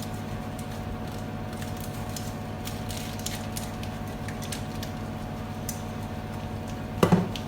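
Steady hum of a running kitchen appliance, with faint scattered clicks and light handling noise. A brief voice sound comes near the end.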